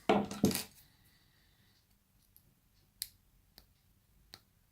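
A few small, sharp clicks, spaced well apart, from the small parts of a disassembled pin-tumbler lock being handled.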